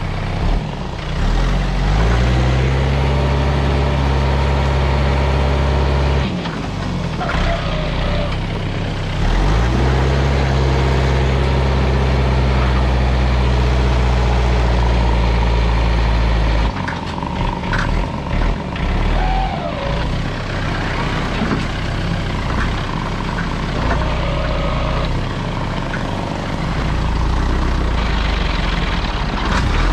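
Tractor diesel engine revving up and holding at high revs twice, dropping back in between, then running lower and unevenly after about 17 seconds in.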